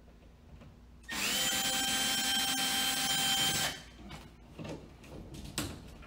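Cordless drill-driver backing out a wall outlet's mounting screw: a steady motor whine that spins up about a second in and stops abruptly after about two and a half seconds. Light clicks and rattles follow as the outlet is handled out of the wall box.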